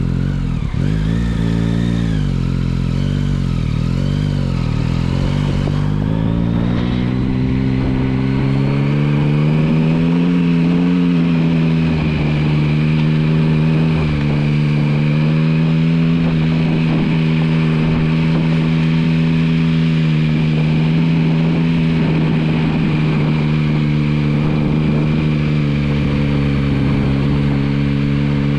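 Yamaha MT-09's three-cylinder engine running at low speed off road, the revs rising and falling over the first few seconds, then climbing and holding steady.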